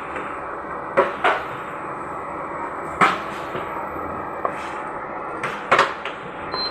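Sharp knocks of kitchen utensils: two about a second in, a loud one near the middle, and two more near the end, over a steady hiss.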